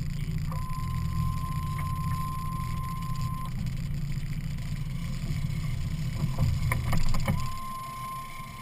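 Outboard engine idling with a steady low rumble, then cutting out about seven seconds in just after a few sharp clanks. A steady high beep sounds for about three seconds starting half a second in and starts again as the engine stops.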